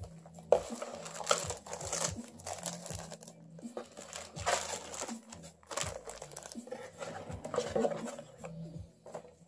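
Bubble wrap and clear plastic wrapping crinkling and rustling in irregular bursts as a plastic coffee dripper is unwrapped by hand.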